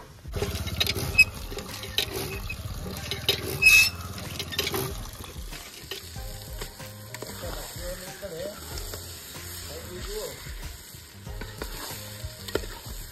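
Masala-stuffed fish frying in hot oil in a pan, with a steady sizzle. Sharp clinks and knocks of a utensil come in the first few seconds, after which the sizzle goes on more quietly.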